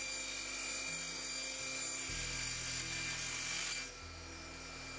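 Small table saw running with a steady whine as drawer parts are cut to length; it gets quieter and duller about four seconds in.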